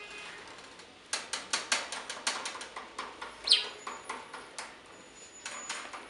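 Budgerigar chattering: a quick run of sharp clicking notes, a short falling whistle about halfway, then more clicks near the end.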